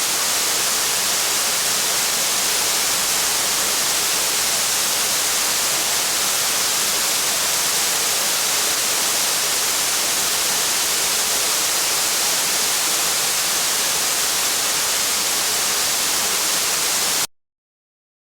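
Heavy rain falling in a steady, even hiss, cutting off suddenly near the end.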